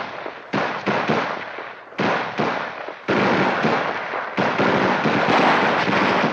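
Gunfire from an M16A1 rifle: several sharp shots in the first three seconds, then two long, loud explosions starting about three and four and a half seconds in.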